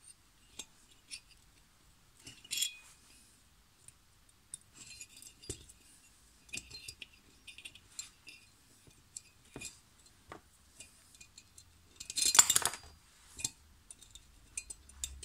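Small metal clicks and clinks as a new cotter pin is worked into the decompressor linkage of a finned aluminium Malossi cylinder head, with a louder metallic clatter about twelve seconds in. The pin is a bit long and is fiddly to get in.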